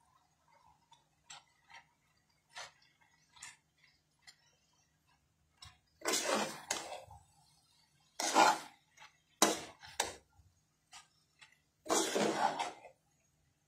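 Spatula scraping and knocking against a metal pan as rice is stirred and turned, in several short bursts about a second long from about six seconds in, with light clicks before them.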